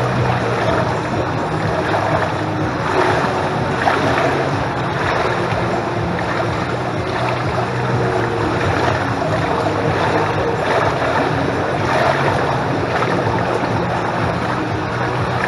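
Swimming-pool water lapping and sloshing against the tiled pool edge close by, over a steady low hum.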